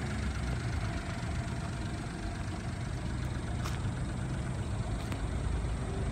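Honda Acty kei truck's small three-cylinder engine idling steadily, with two light clicks in the second half.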